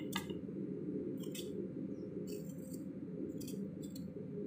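A small knife slicing thin pieces off a firm mango that has gone hard in the fridge: about five short, crisp cutting sounds over a steady low background hum.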